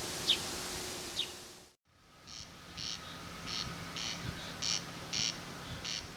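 Steady outdoor hiss with a few faint high squeaks, then, after a brief cut, a run of short high chirps, about two a second.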